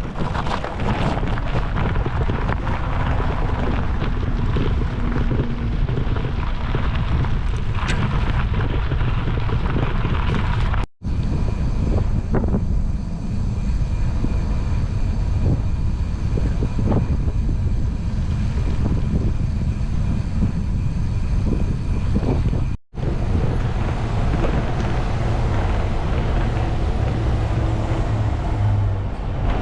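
Wind rumbling over the microphone of a moving bicycle: a steady, loud noise heaviest in the deep range. It drops out abruptly twice, for a split second each time.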